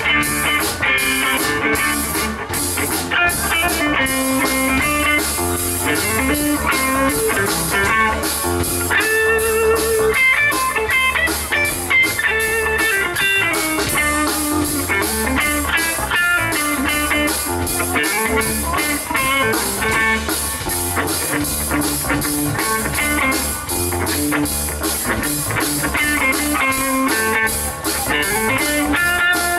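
Live psychedelic rock band playing an instrumental break: an electric lead guitar runs melodic lines over electric bass and a drum kit.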